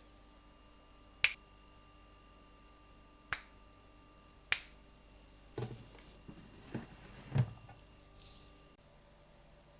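Three sharp clicks, spaced a second or two apart, then a few softer, duller knocks, as of small objects being handled and set down, over a faint steady hum.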